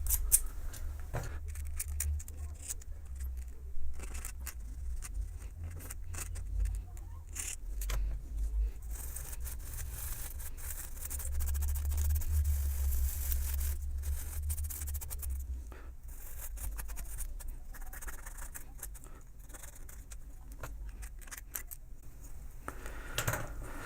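Sandpaper scraping on the steel core of a magnetic starter (contactor), rubbing dirt and rust off the pole faces of its fixed half, with scattered small clicks and handling bumps. The dirt on these faces is what keeps the core from seating and makes the starter hum.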